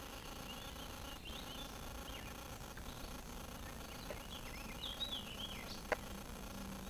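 Faint bird chirping and twittering in scattered bursts, with a single sharp click about six seconds in and a steady low hum coming in near the end.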